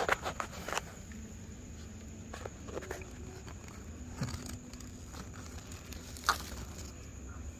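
Dry leaves rustling and crackling in a few short bursts as a cat shifts its paws over them, the sharpest near the start and one more a little after six seconds. A steady high insect trill, like crickets, runs underneath.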